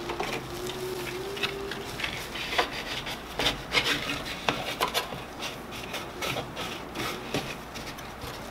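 Abrasive sanding belt being worked by hand onto an expandable rubber drum: irregular rubbing and scraping with many small clicks and taps. A faint hum fades out about two seconds in.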